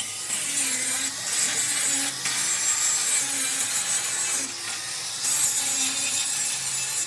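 Grinder abrading mill scale off a steel plate: a steady rough grinding hiss in overlapping passes, briefly easing off a few times.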